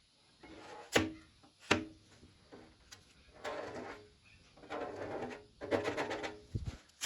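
Two sharp knocks, then several short bursts of rattling and clattering and a low thump near the end: metal parts or tools being handled during work on a car.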